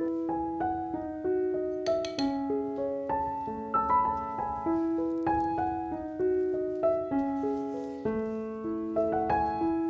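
Background piano music: a gentle melody of struck notes, each fading away, at a steady pace of about two or three a second. A short clink sounds about two seconds in.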